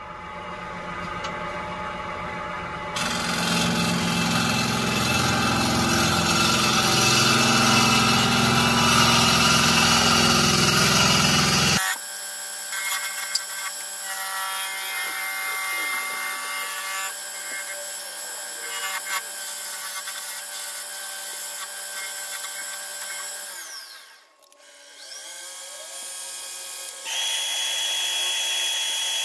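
Wood lathe spinning a cherry bowl while a hand-held turning tool cuts the wood, the sound changing abruptly about twelve seconds in and again near the end. In the last seconds a drill-driven sanding pad sands the spinning bowl, with a steady high whine.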